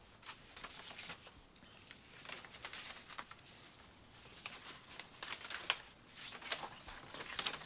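Large paper film posters rustling and crinkling irregularly as they are leafed through and pulled out by hand.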